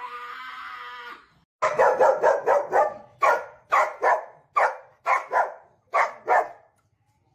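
A short noisy sound, then a dog barking loudly in a quick series of about a dozen barks that stops shortly before the end.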